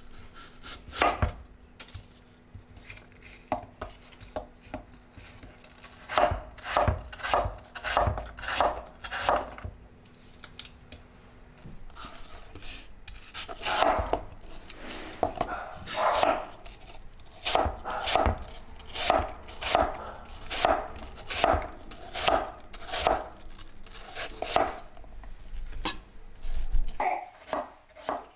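Kitchen knife chopping food on a wooden cutting board: a long run of irregular strokes, roughly one to two a second, with a few pauses.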